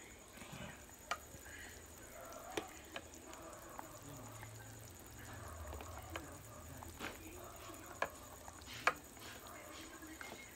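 A white plastic ladle knocks against the inside of a stainless steel rice cooker pot in a handful of sharp, irregular clicks, the loudest near the end. The pork is being prodded to check whether it is tender yet.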